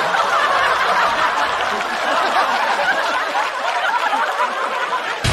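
Audience laughing, many voices at once at a steady level.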